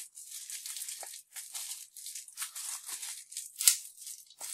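Plastic packaging crinkling and crackling in irregular bursts as a boxed collectible model is worked out of it, with one sharp plastic snap about three and a half seconds in.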